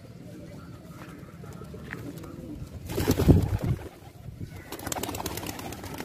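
Fantail pigeons cooing, with a louder burst about three seconds in and a fast run of clicks near the end.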